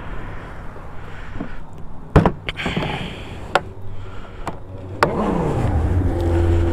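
Hard plastic storage box on a Can-Am Ryker Sport being handled and shut, with several sharp clicks and snaps, the loudest about two seconds in. About five seconds in the trike's engine starts, its pitch sweeps briefly, then it settles into a steady idle.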